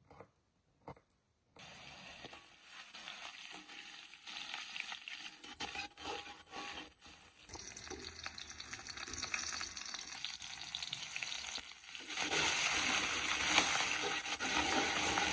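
A few knife taps on a wooden cutting board, then oil sizzling in an aluminium wok as a chili, garlic and shallot spice paste fries and is stirred with a spatula. The sizzling gets louder about twelve seconds in.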